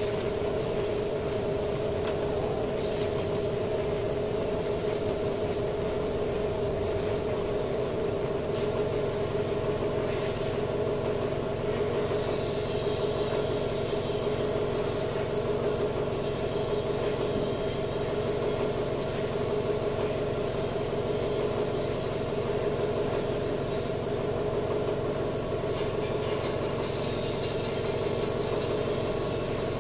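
Steady mechanical drone like a running engine or motor, with a lower hum joining about eight seconds in.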